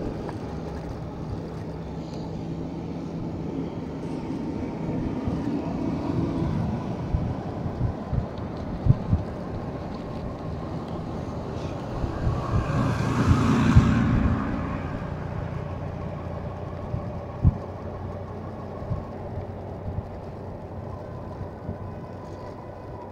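Wind on the microphone and road noise from riding a bike along a paved road. A passing vehicle swells and fades, loudest about thirteen to fourteen seconds in, with a few short knocks along the way.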